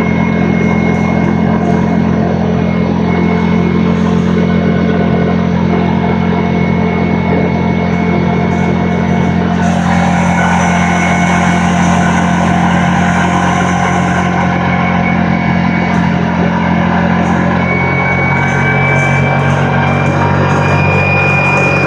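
An ATV engine runs at a steady cruising speed, with a constant low drone, while rock music with guitar plays over it. A stretch of added hiss comes in from about ten seconds in for a few seconds.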